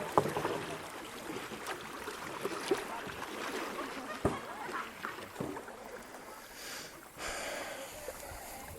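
Kayak paddling: paddle splashes and moving creek water, with a few sharp knocks scattered through.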